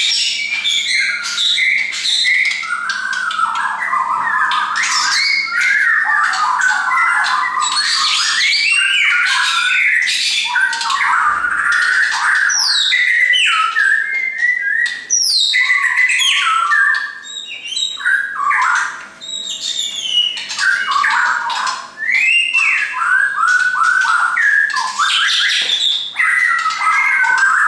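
Caged shama singing a long, loud, varied song of fast whistles, trills and chattering phrases, with only a few short pauses.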